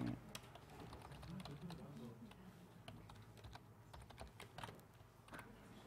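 Quiet typing on a computer keyboard: an irregular run of keystrokes as text is entered.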